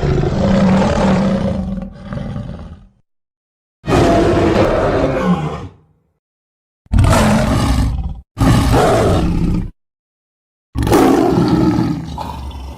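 Smilodon (sabre-toothed cat) creature sound effects: a string of separate roars cut apart by dead silence. One fades out about three seconds in, a longer one follows, then two short roars come back to back, and another starts near the end.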